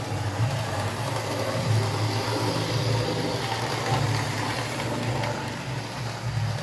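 Hornby Dublo OO-gauge model diesel multiple unit running round the track: a steady low electric motor hum over the noise of its wheels on the rails.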